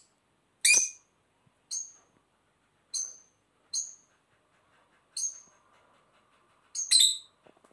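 A lovebird giving a string of short, sharp, high-pitched chirps, about seven of them, spaced roughly a second apart.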